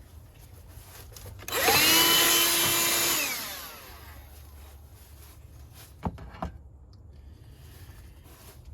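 Power drill spinning up, running for about a second and a half with a hissing scour, and winding down, used to clean rust off a corroded battery hold-down bolt. Two sharp clicks follow a few seconds later.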